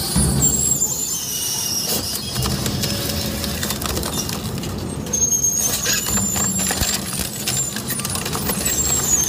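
Twin-shaft shredder's hooked cutter rotors tearing up a car wheel, steel rim and tyre. Metal crunches and grinds over the machine's steady low drone, with high metallic squeals that slide down in pitch now and then.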